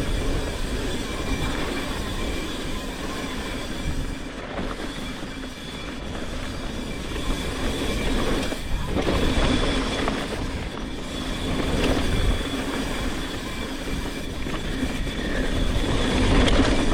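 Mountain bike rolling down a dirt trail, heard from a rider-worn GoPro: continuous tyre and frame rattle with a thin, steady high whine running through it.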